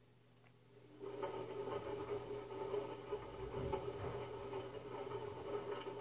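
Front-loading washing machine running, a steady motor hum over a whirr as the drum turns, starting about a second in.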